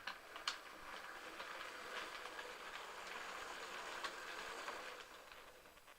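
A heritage railway train heard through a phone microphone: a rushing noise with a few sharp clicks right at the start, building up and then fading away near the end.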